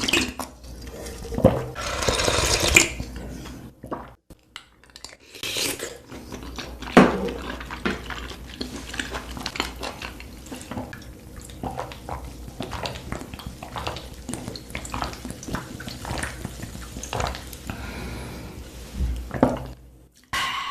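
Wet chewing and mouth sounds of a person eating: irregular soft squelches, smacks and clicks, with a longer noisy stretch about two seconds in.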